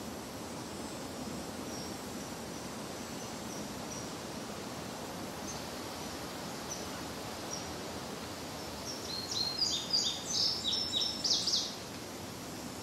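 Wild songbird singing: about nine seconds in, a loud rapid run of high, clear falling notes lasting about three seconds, with a few faint high chips before it, over a steady soft outdoor hiss.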